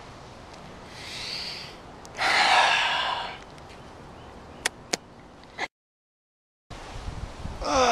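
A man sniffs in through his nose, then lets out a loud, breathy sigh lasting about a second. A few sharp clicks follow, then the sound cuts out completely for about a second.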